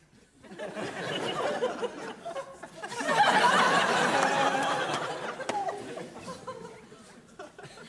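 Audience laughing. It builds about half a second in, is loudest around the middle, and dies away near the end.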